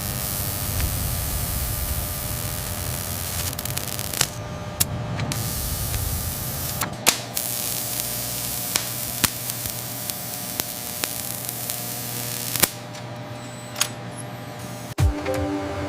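Steady machine hiss over a low hum, with scattered sharp clicks; the hiss drops out briefly a few times.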